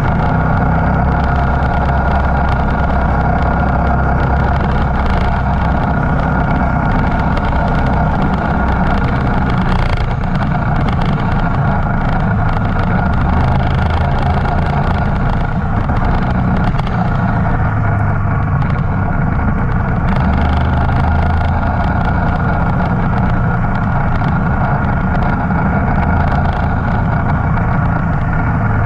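Motorcycle engine running steadily, its note shifting a little now and then, with no break.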